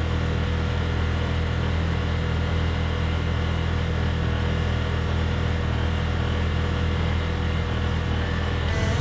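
Side-by-side utility vehicle's engine running steadily under way, a constant low drone with a rushing noise of driving over it.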